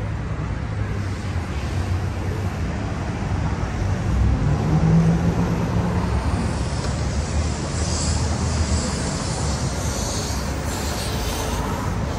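Street traffic at a city intersection: cars and buses running past, a steady mix of engine and tyre noise. A louder engine hum rises and passes about four to six seconds in, and some higher hissing comes in toward the end.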